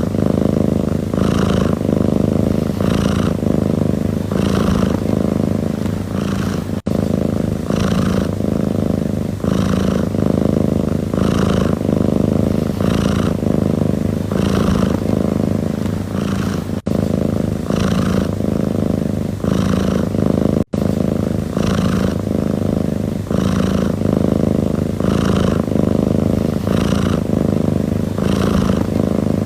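Domestic cat purring steadily, the rumble swelling and easing with each breath a little faster than once a second, with a few very brief breaks.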